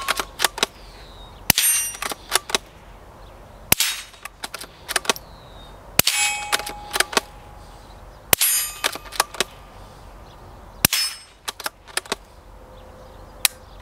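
Suppressed Springfield 2020 Rimfire bolt-action .22 LR rifle firing about five shots, roughly two and a half seconds apart. Each shot is followed a moment later by a ringing metallic clang, with smaller clicks of the bolt being worked between shots.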